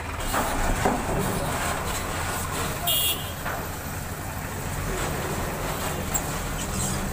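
Vehicle engines running with a steady low hum as cars and a pickup truck move over a ferry's steel loading ramp, with a short sharp burst of noise about three seconds in.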